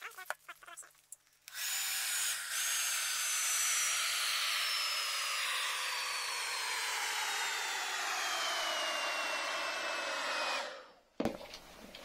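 Handheld hair dryer running for about nine seconds, blowing hot air to melt the glue holding the blower fan housing of an inflatable costume; a high whine in its noise slowly drops in pitch while it runs. It cuts off suddenly near the end, followed by a sharp click.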